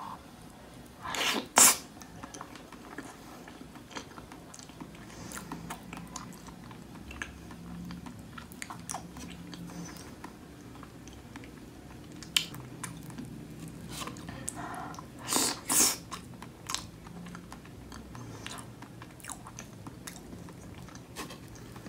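Close-up chewing of strawberry cheesecake with a graham-cracker crust: soft, wet mouth sounds with many small clicks. There are two louder, sharper bursts, one about a second in and another about fifteen seconds in.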